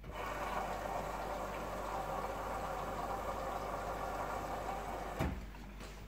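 LG F4J5TN7S direct-drive front-loading washing machine running early in a quick wash, a steady rushing noise. A sharp click comes about five seconds in, after which the sound drops away.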